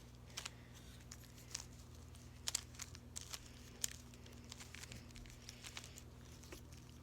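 Plastic clicks and clacks of a 3x3 Rubik's cube being twisted by hand, irregular turns with a few sharper clicks about two and a half and four seconds in. A faint steady hum runs underneath.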